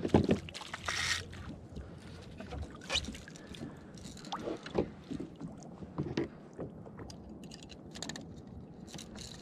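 A small fish splashing at the water's surface beside a kayak as it is lifted out on the line, then scattered short knocks and clicks from handling the fish and lure against the hull, over the lap of water.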